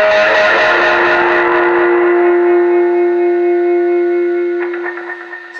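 Electric guitar through a delay effect, its last two-note chord held and ringing out, slowly fading, with a little string noise near the end as it dies away. The player says half of that two-note chord dropped out of key.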